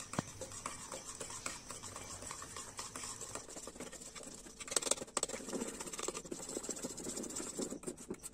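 Wire whisk beating thick besan batter in a steel bowl, with Eno fruit salt just added. Quick continuous ticks and scrapes of the wires against the metal mix with wet slapping of the batter, briefly louder about five seconds in.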